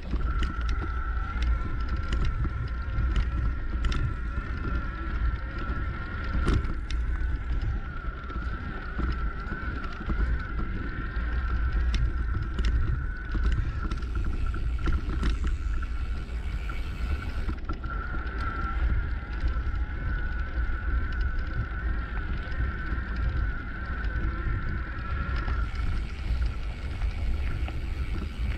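Bicycle riding along a sandy dirt track: wind rumbling on the microphone, the tyres rolling over sand and grit with scattered sharp clicks, and a steady high whine that stops about three seconds before the end.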